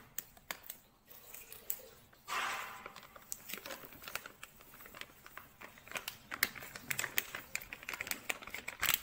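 A plastic flour bag crinkling and rustling as it is cut open with scissors and tipped to empty flour into a stainless steel bowl. A louder rustle comes about two seconds in, followed by many small crackles and ticks.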